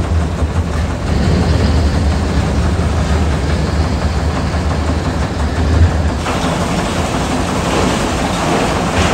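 Industrial car shredder running under load with a heavy, steady low rumble, chewing through a crushed pickup truck fed into its infeed. The deep rumble drops away about six seconds in, leaving a lighter grinding noise.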